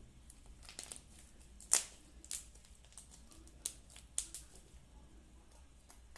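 Slime being squeezed and stretched by hand, giving a scatter of short, sharp pops and crackles, the loudest a bit under two seconds in.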